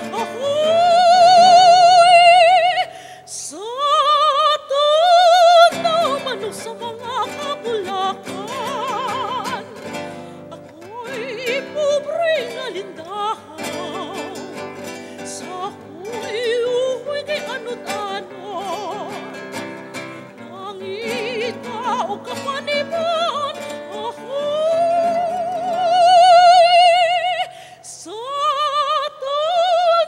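Classical, operatic-style singing holding long high notes with wide vibrato, over instrumental accompaniment. The loudest held notes come near the start and again near the end.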